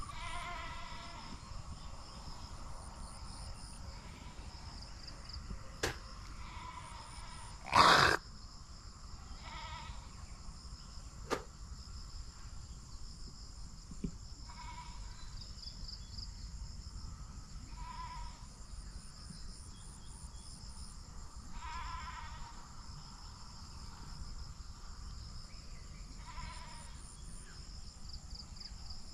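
Short animal calls, each under a second, repeating every few seconds over a steady high insect buzz. A brief louder noise comes about eight seconds in.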